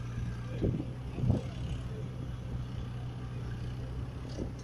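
Diesel tractor engine running steadily as it hauls a loaded tipper trailer over rough ground, heard at a distance as a low hum. Three short low thumps come through, about a second in, just after, and near the end.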